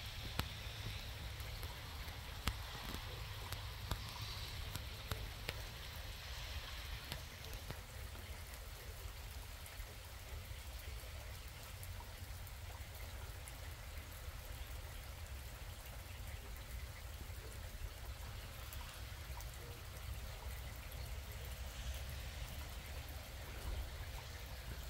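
Rain falling, an even hiss with scattered sharp ticks of drops striking close by, over a steady low rumble.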